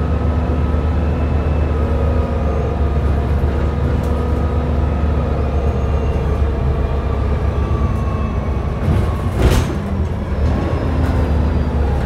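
Volvo B7TL double-decker bus's six-cylinder diesel engine running while the bus drives, heard from the upper deck. It makes a steady low drone with faint whining tones that drift slowly in pitch. A brief sharp burst of noise comes about nine and a half seconds in.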